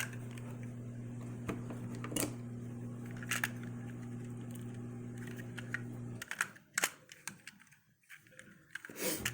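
Scattered small clicks and taps from handling AA batteries, over a steady low electrical hum that cuts out about six seconds in, followed by a few more clicks.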